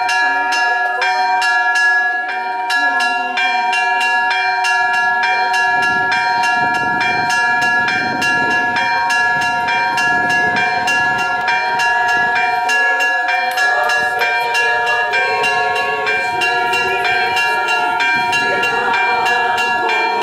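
Orthodox church bells ringing a continuous festal peal: several bells sounding together in quick, even strokes, each stroke leaving a ringing tone. Crowd voices join under the bells partway through.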